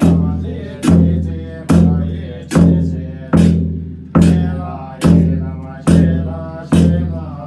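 Tibetan Buddhist nga, a large double-headed frame drum on a handle, beaten with a steady slow beat of about one stroke a second. Each stroke booms deep and rings out before the next.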